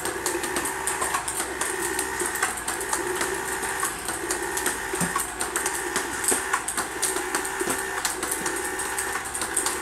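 Table tennis ball robot running and feeding balls, with rapid irregular clicks of the 40 mm balls bouncing on the table and off the paddle over the steady whir of its motors.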